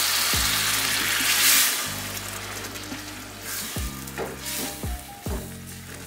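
Hot oil and masala sizzling loudly in a stainless steel saucepan as water hits it, the hiss dying down after about two seconds; a wooden spatula then stirs the thinned sauce.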